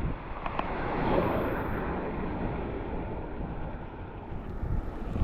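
Wind buffeting the microphone, with a steady low rumble and a swell about a second in.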